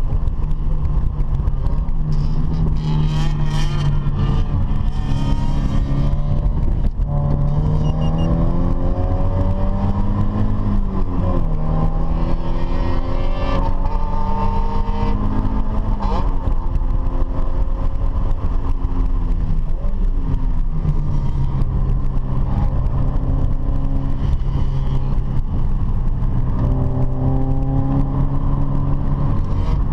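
Car engine being driven hard: the engine note holds steady, then climbs and drops back sharply several times as it revs through gear changes and slows, before settling into a steady drone near the end.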